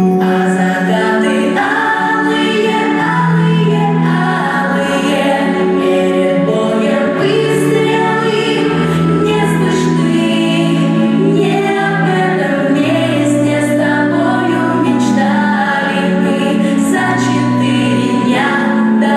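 A song performed by a choir of voices over an instrumental accompaniment, with long held notes and a steady bass line.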